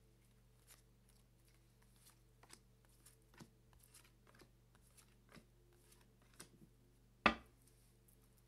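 Tarot cards being shuffled by hand and dealt onto a cloth-covered table: faint scattered flicks and taps of the cards, with one sharp knock about seven seconds in. A faint steady hum runs underneath.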